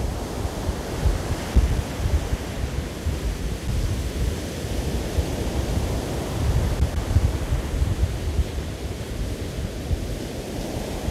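Rough sea surf breaking and washing up a pebble beach, with gusty wind buffeting the microphone.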